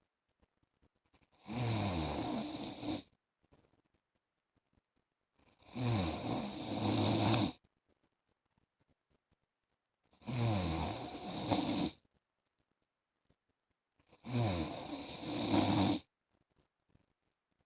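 A man snoring in his sleep: four snores, each lasting about one and a half to two seconds and coming about every four seconds, with near silence between them.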